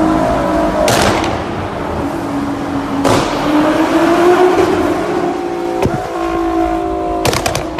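Nissan GT-R R35's 3.8-litre twin-turbo V6 running, its pitch rising and falling once, with sharp exhaust pops and crackles: a few single pops, then a quick cluster near the end.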